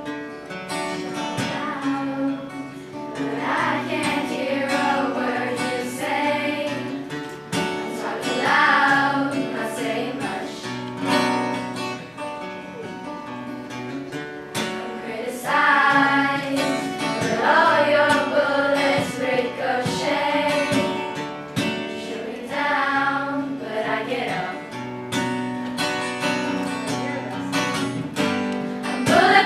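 Choir singing a song to acoustic guitar accompaniment, the voices coming in phrase by phrase over the guitar.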